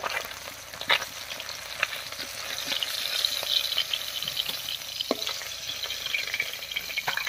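Pabda fish sizzling as they fry in mustard oil in a kadai, with a few sharp metal clicks as a steel spatula lifts them out of the pan.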